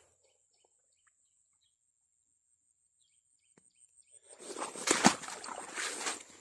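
About four seconds of near silence with a few faint bird chirps and a thin, steady high tone. Then, from about four seconds in, loud irregular rustling and splashing steps through wet, muddy ground.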